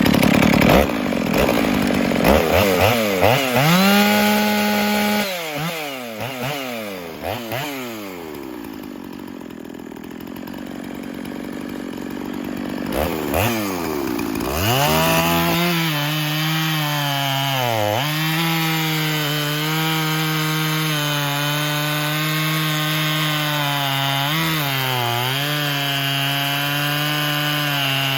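Stihl MS 460 two-stroke chainsaw, its high end tuned to about 12,500 rpm, revving up to full throttle, blipping back down to idle, then running flat out in a cut through a log, its pitch dipping briefly under load twice. The saw has just been repaired.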